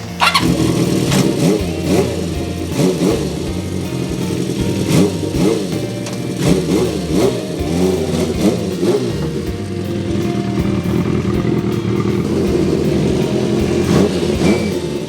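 Honda CB400Four's air-cooled inline-four being blipped repeatedly through its Yoshimura short exhaust, the revs rising and falling again and again, then settling to a steadier run for the second half. The muffler's broken baffle has been freshly welded back in, and the engine runs without a rattle.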